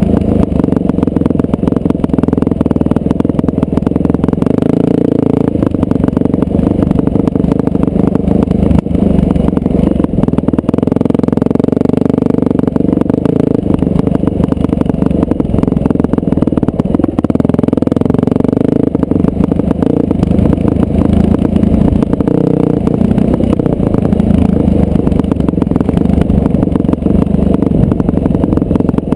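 Dirt bike engine running steadily under way at cruising speed, its note wavering and recovering briefly about halfway through.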